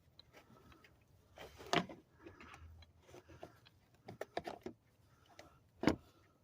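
Seatbelt hardware and car interior parts being handled: scattered light clicks and rustling, with two louder knocks, one a couple of seconds in and one near the end.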